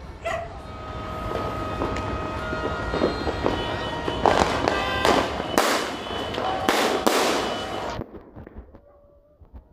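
Fireworks going off: steady crackling with several louder bangs, cutting off abruptly about eight seconds in.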